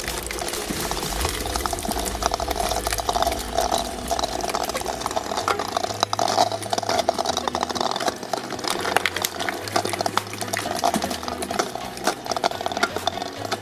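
Shredding machine chewing up a Stretch Armstrong toy: dense crackling over a steady machine hum.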